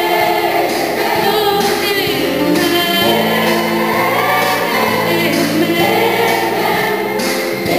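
Children's gospel choir singing, with a lead singer at a microphone carrying the melody over held notes.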